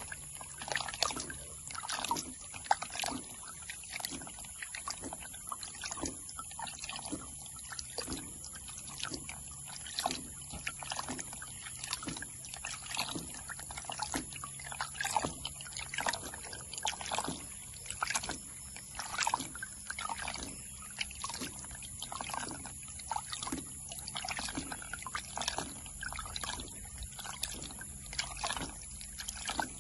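Water sloshing and splashing in a steady run of short strokes, a little more than one a second, as a gold pan is shaken and swirled in stream water.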